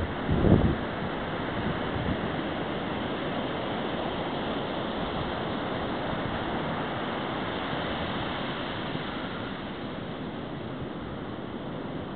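Ocean surf washing steadily on a sandy beach, with two brief low thumps on the microphone near the start.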